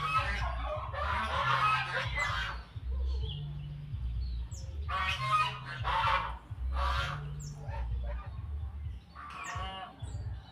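Cucak jenggot (grey-cheeked bulbul) giving loud, harsh chattering calls in three long bursts, with short thin high whistles in between.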